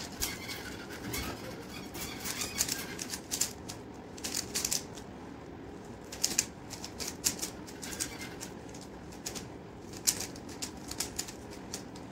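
Plastic Rubik's cube layers being twisted by hand: runs of quick clicks and clacks with short pauses between them.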